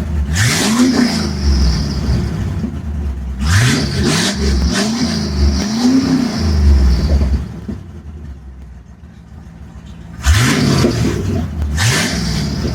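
1962 Chevy C10's small-block V8, warm at operating temperature, idling and being revved in short blips. There is one rev, then three in quick succession. It settles to a quieter idle for a couple of seconds, then two more revs come near the end.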